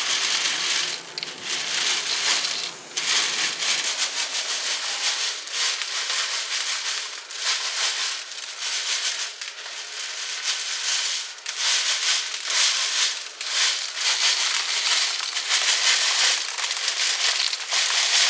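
Frozen elderberries being rubbed through a metal mesh screen, rattling as they drop into metal bowls below and the stems scrape over the mesh: a continuous, uneven rattling rustle.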